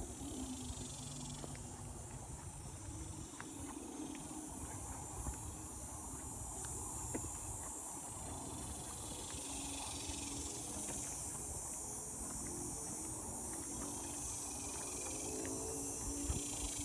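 Steady high-pitched insect chorus over a low rumble, with faint scattered ticks from footsteps on a dirt trail.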